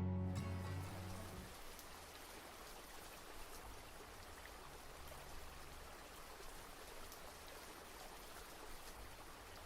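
Steady gentle rain, an even hiss with scattered drop ticks. The tail of soft music fades out in the first second or so.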